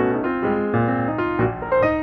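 Background piano music: a steady flow of notes over a held bass line.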